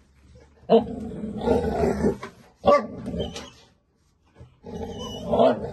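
Dogs play-fighting: growling and barking in three bouts, about a second in, near three seconds and again near the end.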